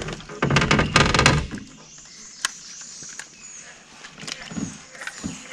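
A burst of knocking and rattling about a second long as gear is handled in a small fishing boat, followed by quieter scattered clicks.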